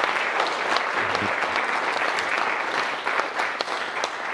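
A roomful of guests applauding, dense clapping that begins to tail off near the end.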